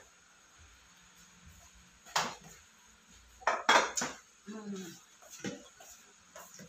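Tableware clinking: a metal ladle and a drinking glass knocking against a stainless-steel serving bowl. One sharp clink comes about two seconds in, a louder cluster of clinks follows a second and a half later, then lighter knocks.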